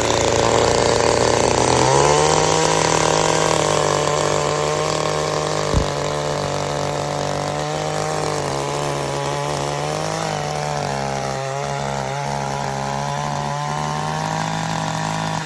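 Small two-stroke engine of a Kawano CT-1568 mini tiller running after a pull-start. It speeds up about two seconds in and then runs steadily at the higher speed, with a single sharp click near six seconds.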